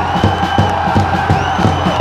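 Football supporters' crowd cheering and chanting in a stadium stand over a steady beat of hand-held drums, about four beats a second. A high, steady whistle-like tone sounds twice over the crowd.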